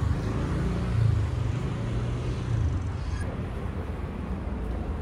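Street traffic ambience: a car engine's low hum during the first few seconds, over steady outdoor traffic noise.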